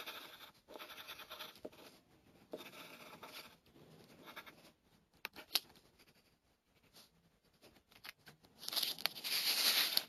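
Coloured pencil scratching on paper in short strokes, then a felt-tip marker tapping and rubbing on the drawing, with a few sharp clicks. A louder rustling scrape comes near the end.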